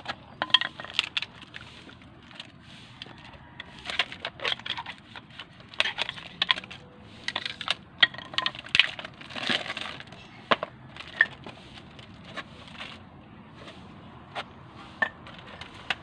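Plastic wrapping crinkling and tearing as a set of new brake pads is unwrapped by hand: a run of irregular crackles and sharp clicks that thins out near the end.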